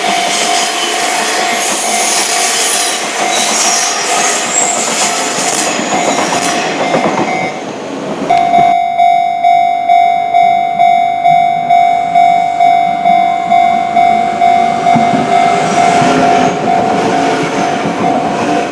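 Japanese level-crossing warning bell ringing while an electric commuter train runs past. About eight seconds in the train noise drops away and the bell rings on by itself in an even clang, about one and a half strokes a second.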